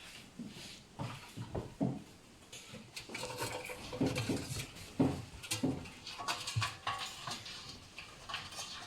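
Young raccoon kits scrabbling and knocking about among household things, with irregular clicks and knocks and short, falling animal calls, busier in the second half.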